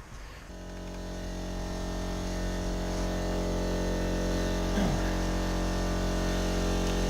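A steady mechanical hum at a constant pitch starts abruptly about half a second in and grows louder over the next couple of seconds. There is a brief falling squeak near the middle.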